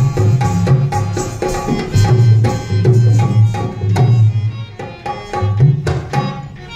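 Rajasthani folk music: a hand drum beats a quick, steady rhythm under a held melody, getting quieter near the end.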